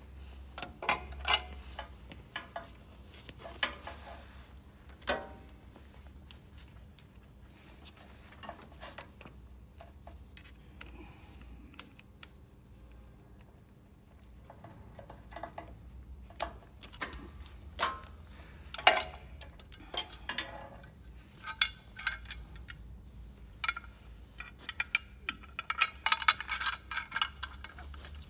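Scattered metallic clicks and clinks of pliers and a steel brake cable being handled while the cable is pulled out and clamped to a forklift's hand-brake lever, coming thickest near the end, over a low steady hum.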